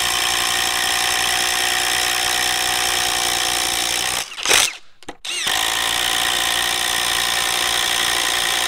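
Ryobi P239 brushless impact driver hammering steadily at full speed as it bores a dulled 1-inch paddle bit through a wooden board. About four seconds in it stops for roughly a second, with a brief louder burst in the pause, then starts again for the second hole.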